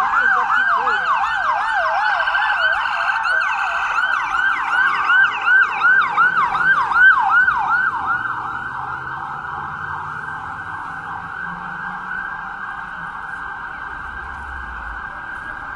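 Ambulance siren in yelp mode: a fast rising-and-falling wail at about three cycles a second. It is loudest about six to seven seconds in as the ambulance passes, then blurs and fades as it moves away.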